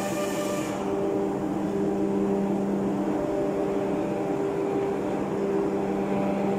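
Steady machinery drone in a ship's engine room: a constant hum with a strong low tone and a higher tone above it. A high hiss cuts off under a second in.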